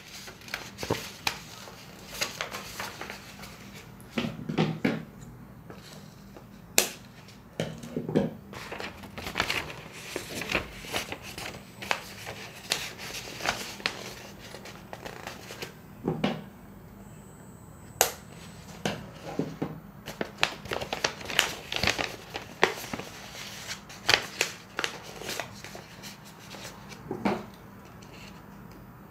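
Paper pattern rustling and crinkling as it is folded and handled, with scattered short snips of scissors cutting notches at the tuck marks.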